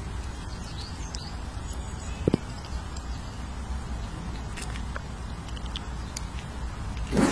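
Steady low outdoor rumble with a few faint, short bird chirps. A sharp knock sounds about two seconds in, and a louder brief rustling sweep near the end.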